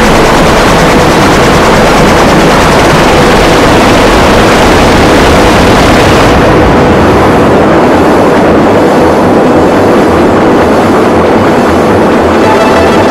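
Noisy electronic music: a dense wash of distorted synthesizer noise with faint sustained tones beneath it. About six seconds in, the high end is cut away, leaving a darker, pulsing drone.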